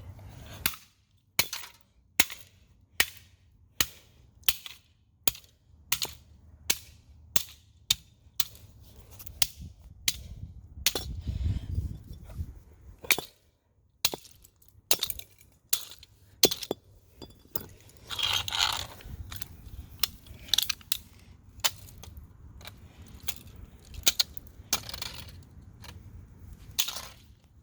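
A long run of sharp, hard blows, roughly one to two a second, smashing plastic chargers and an AC adapter apart, with cracking and breaking between the strikes.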